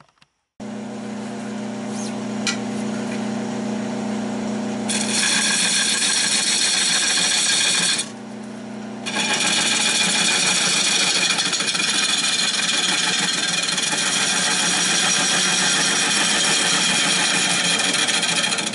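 Nova 16/24 wood lathe switching on and running with a steady hum. About five seconds in a turning tool starts cutting into the spinning redbud blank, a loud scraping hiss of hollowing out the bowl's inside, which breaks off for about a second and then resumes.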